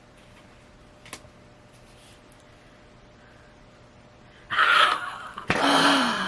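A woman's breathy laugh near the end, loud and falling in pitch, after a quiet stretch broken only by a faint tap about a second in.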